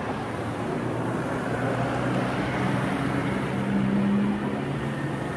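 Motorbike engine passing close by, building up and loudest about four seconds in, then fading, over steady street noise.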